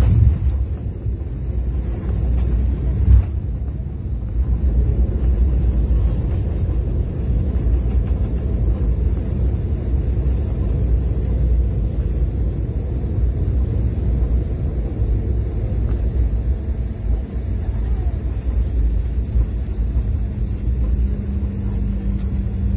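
Airliner cabin noise during the landing roll: a steady low rumble from the wheels and engines on the runway, with two knocks about half a second and about three seconds in. A steady hum comes in near the end.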